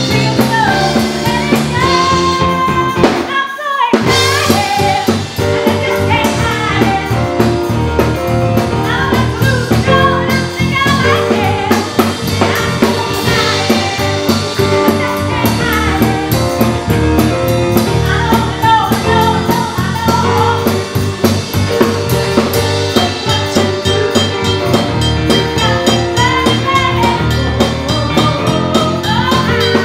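Live band music: a woman sings lead over electric bass guitar and a drum kit, loud and continuous, with a brief break in the music about three and a half seconds in.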